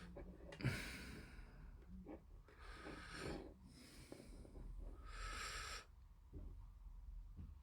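A person breathing close to the microphone: four or five breaths of just under a second each, with a sharp click just after the first begins.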